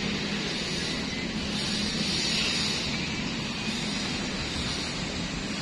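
Steady outdoor background noise: a continuous hiss with a faint low hum and no distinct events.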